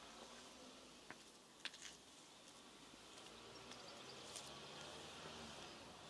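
Quiet outdoor ambience, close to silence: a few soft ticks in the first two seconds, then a faint low hum and a thin high hiss coming in about halfway.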